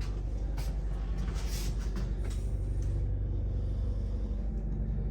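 Steady low mechanical rumble with a few faint knocks.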